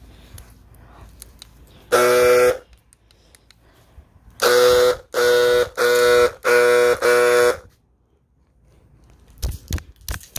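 Car horn honking: one honk, then after a pause four more honks in quick succession, each about half a second long. A few sharp knocks follow near the end.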